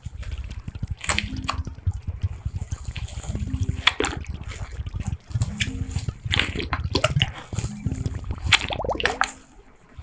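Water squeezed from a plastic squeeze bottle onto hair full of slime shampoo, dripping and squishing as the wet hair is worked through to rinse the slime out. Short sharp squirts come several times over a steady wet crackling rustle.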